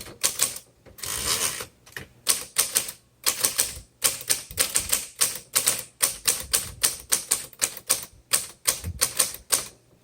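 1950 Underwood Champion manual typewriter being typed on: a run of sharp keystroke clacks, several a second, with brief pauses between bursts.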